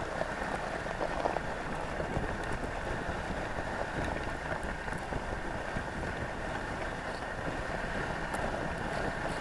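Dogsled gliding along a packed-snow trail behind its running team: a steady swishing hiss of the runners on the snow.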